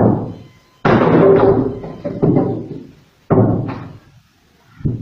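Sledgehammer striking the back of a wood-splitting axe head driven into a log: a series of heavy, sudden blows, about five in all, each dying away, with the one about a second in lasting longest.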